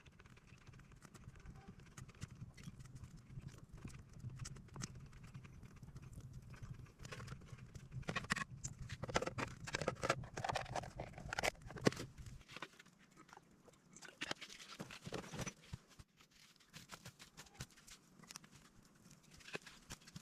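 Irregular knocking and rustling, busiest in the middle, over a low steady hum that stops about halfway through.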